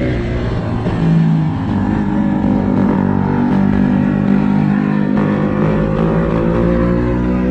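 125 cc single-cylinder motorcycle engine running while the bike is ridden, its pitch climbing slowly in the second half as it accelerates.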